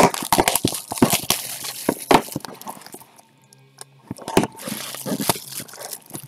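Plastic shrink wrap on a card box crinkling as it is handled and slit open with a utility knife: a run of irregular crackles and clicks, quieter for a moment in the middle.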